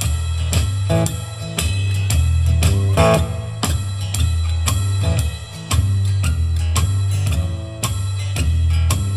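Live rock band playing an instrumental passage: guitar and bass over a drum kit beat, with drum hits about two a second.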